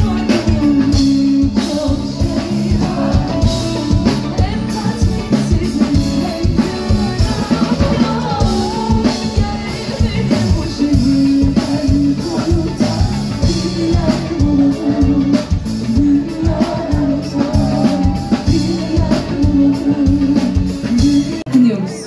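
Live band music with a woman singing lead over a drum kit keeping a steady beat, with guitars behind.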